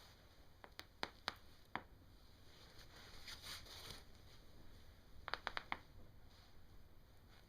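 Spinal joints cracking during a chiropractic adjustment: a handful of sharp pops in the first two seconds, then a quick run of about four pops about five and a half seconds in, with a soft rustle between.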